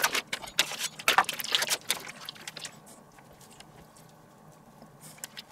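Plastic bacon packaging crinkling and rustling as bacon slices are pulled out of it, a dense run of crackles for about the first two and a half seconds, then only faint small handling ticks.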